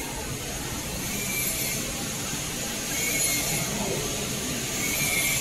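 Mask body-making machine running steadily with a continuous mechanical whir, with faint short high whines recurring every second or two.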